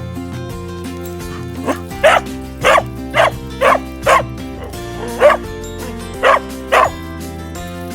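A dog barking: a run of five quick barks starting about two seconds in, then three more spaced out near the end, over steady background music.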